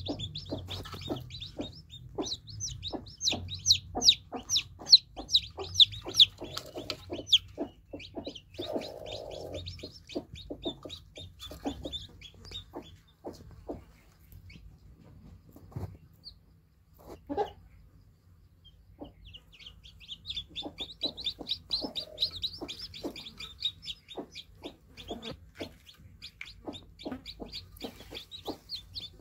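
Newly hatched chicks peeping rapidly and shrilly, many calls overlapping. The peeping dies down for several seconds in the middle, then starts up again.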